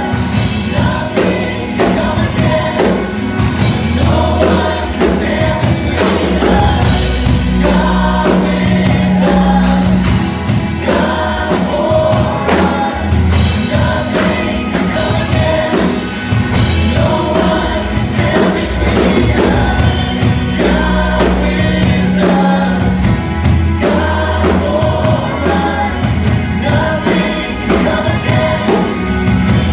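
Live Christmas choir music: women vocalists and a children's choir singing together over steady instrumental accompaniment with a sustained bass line.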